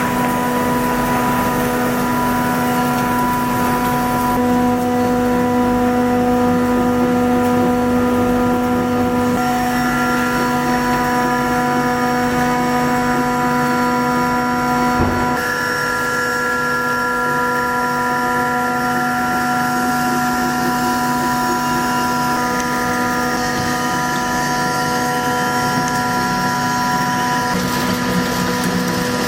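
Industrial flake ice machine with a Bitzer refrigeration compressor running: a steady machine hum at a fixed pitch. A single short knock comes about halfway through.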